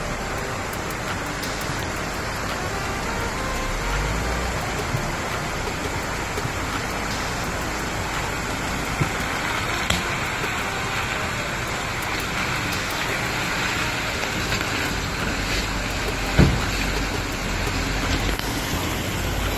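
Jeep Wrangler Rubicon wading through a shallow creek: a steady wash of splashing water over the engine's low running. The rumble grows near the end as it reaches the rocks, with a single thump about two-thirds through.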